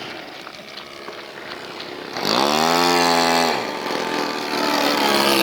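Small model aircraft engine running, revved up sharply about two seconds in, held at high revs for about a second, dropped back, then opened up again near the end.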